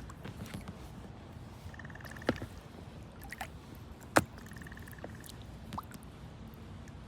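Water dripping and lapping around a kayak, with two sharp knocks, the second one louder. A short rapid trill, an animal call, repeats about every three seconds.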